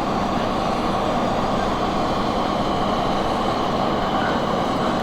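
Fire truck engines running steadily, an even rumble with no breaks.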